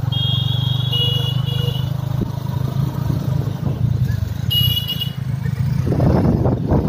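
Motorcycle engine running steadily under way, with a horn sounding twice: a long toot of about two seconds, then a short one. Near the end the rumble grows louder and rougher.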